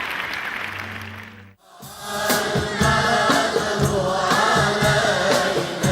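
Applause fading out, then after a brief silence, a choir begins singing over a regular drum beat about two seconds in.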